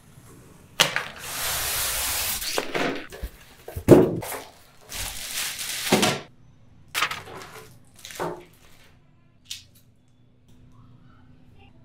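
A cardboard carton being opened: long tearing, scraping noises as the packing tape is slit and pulled, twice, with heavy thuds as the box and its contents are handled. Smaller handling knocks and a click follow, then it goes quiet.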